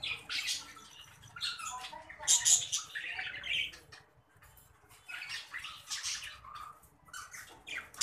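Budgerigars chattering and squawking in short, harsh bursts with brief gaps, loudest about two seconds in.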